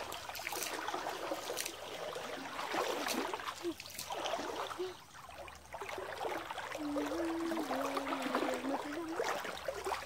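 Stream water sloshing and splashing around the legs of people wading waist-deep through it, with many small splashes.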